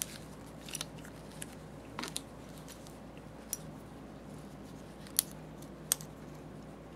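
Scattered small clicks and taps, about seven at uneven intervals, as a knob is pushed back onto the greased shaft of a Haag-Streit slit lamp's rotary diaphragm selector, over a low steady hum.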